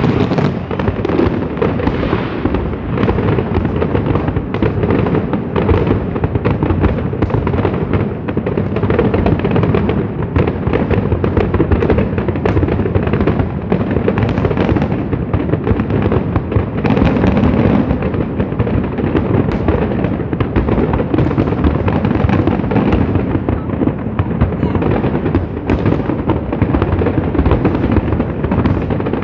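Fireworks display in full barrage: a dense, continuous run of shell bursts and crackling with no let-up.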